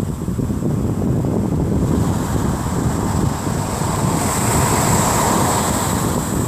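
Ocean surf breaking on the beach, with wind buffeting the microphone as a steady low rumble. The hiss of a wave washing in swells about four seconds in and eases near the end.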